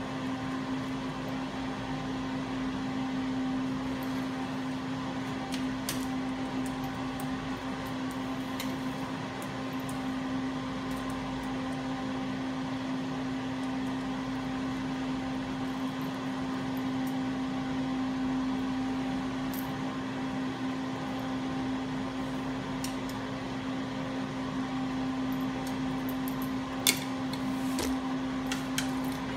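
Steady machine hum with a strong low tone. A few light clicks and one sharp tap near the end come from leather lace and a sheath being handled.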